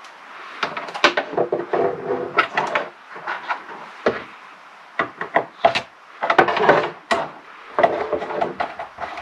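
Irregular clicks, knocks and short scrapes as wire ends are fed into a solar charge controller's screw terminals and the terminal screws are turned with a screwdriver, with hands and cables bumping the wooden desktop.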